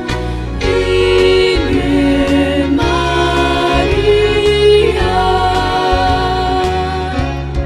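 Female vocal trio singing a hymn to Mary, holding long notes over a backing track with a steady low bass.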